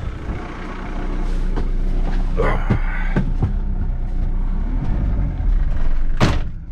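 Pickup truck's engine running steadily, heard from inside the cab, with a few clunks as the driver climbs in and shuts the door. A loud bang comes near the end.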